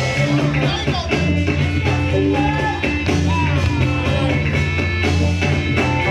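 Loud music with a heavy bass line and a steady beat, playing over PA speakers.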